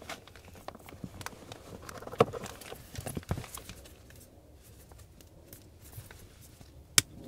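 Scattered light clicks and taps from handling a pleated cabin air filter against the plastic filter housing, with a sharper knock about two seconds in, another a second later, and one near the end.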